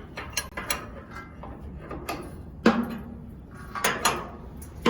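Metal knocks and scrapes from the steel screw of a screw-type wood chipper being turned by hand against its counter knife while the knife clearance is set. A handful of separate hits, the loudest a little past the middle.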